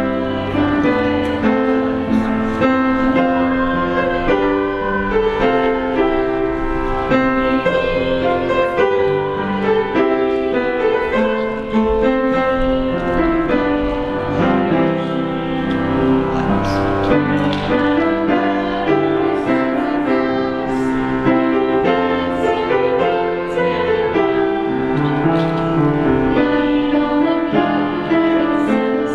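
Slow keyboard music, chords held and changing every second or so.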